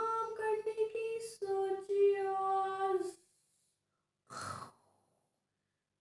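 A high voice holding two long sung notes, the second a little lower, ending about three seconds in, followed by one short breathy sigh.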